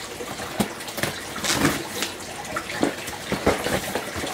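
A cardboard shipping box being opened and handled: rustling and crinkling of cardboard and packing, with scattered knocks and clicks.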